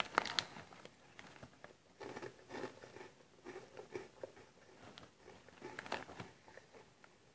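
A person chewing crunchy Cheetos corn puffs with the mouth near the microphone: a string of faint, irregular crunches. There is a brief rustle of the snack bag at the start.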